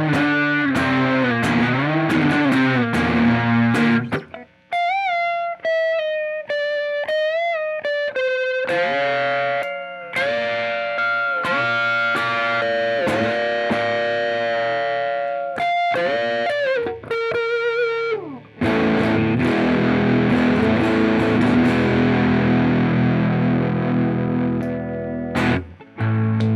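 Squier Paranormal Cyclone electric guitar, with hand-wound Fat 60s pickups, played through distortion. It opens with a bending low riff, moves to a single-note lead melody with bends and vibrato, and about two-thirds of the way in switches to thick, sustained distorted chords.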